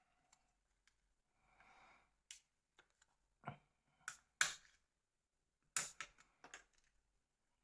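Sharp clicks and taps of a plastic mobile phone's body shell and parts being handled, set down and pressed, in an irregular series with the loudest click about four and a half seconds in.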